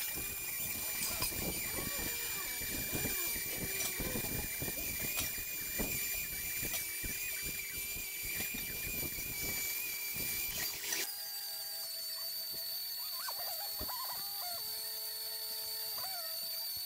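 MIG welding arc crackling and sizzling on steel pipe. About eleven seconds in it cuts off abruptly, leaving quiet background music of held tones that slide in pitch now and then.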